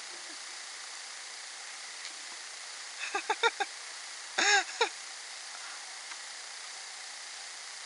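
A woman's voice without words: a quick run of short laugh-like bursts about three seconds in, then a single rising-and-falling cry a second later, over a steady hiss.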